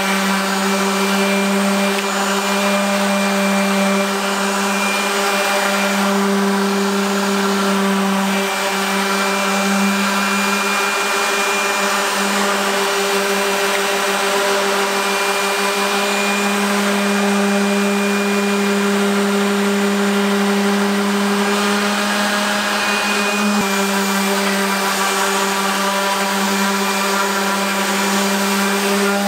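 Bosch random orbital sander running steadily with a constant hum, its pad sanding surface rust off a table saw's metal table.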